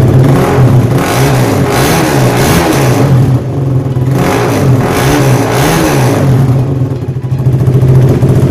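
KTM RC 390's single-cylinder four-stroke engine revved in several throttle blips from idle, each rising and falling back, then idling near the end. It breathes through the stock muffler drilled with 10 mm holes, which makes the exhaust note lot louder and heavier.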